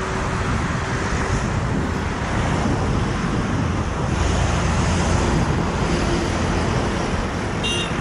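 Road traffic passing on a wet highway: steady tyre hiss and engine noise from a motorcycle, cars and trucks.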